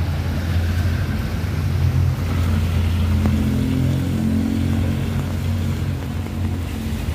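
A motor vehicle's engine running with a steady low hum, its pitch rising a little a few seconds in, over road noise from traffic on a wet road.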